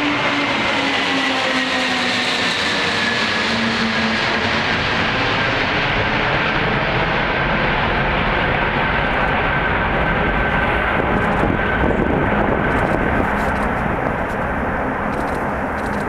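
Antonov An-225 Mriya's six Ivchenko-Progress D-18T turbofans at climb-out, a loud jet roar passing overhead and receding. The engine whine falls steadily in pitch, and the high hiss fades over the second half, leaving a deep rumble.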